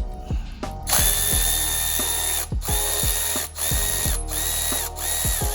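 Impact wrench hammering at the strut's top nut in about five short bursts, each with a steady high whine, starting about a second in; the nut is stuck and won't come off. Background music with deep bass hits plays underneath.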